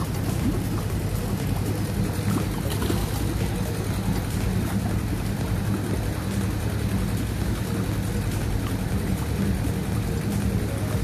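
A motor running with a steady, even low drone, over a haze of rushing water.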